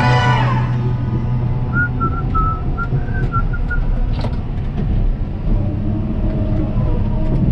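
A steady low rumble with a short whistled tune of about seven quick notes, about two seconds in, in the break between two songs.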